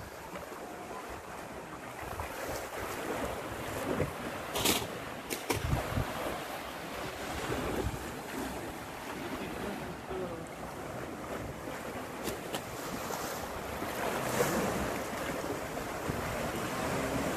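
Wind buffeting the microphone over small waves washing on a rocky shore and its shallows, with a few brief clicks about five seconds in.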